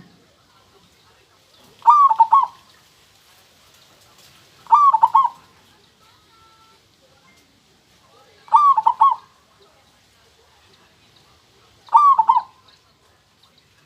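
Zebra dove (perkutut) cooing: four short phrases, each a quick run of a few clipped notes, spaced about three to four seconds apart.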